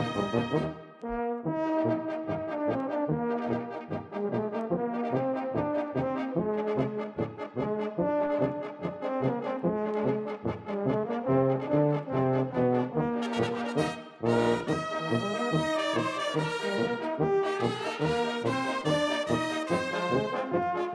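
Bersaglieri fanfare, an all-brass military band of trumpets, bugles and trombones, playing a brisk march in an even, driving rhythm. The band breaks off briefly about a second in and again around fourteen seconds, then comes back in full.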